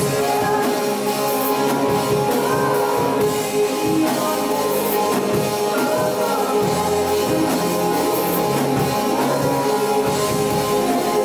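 Live worship band playing a rock-style worship song: electric and acoustic guitars, drum kit and keyboard, with sung vocals over them.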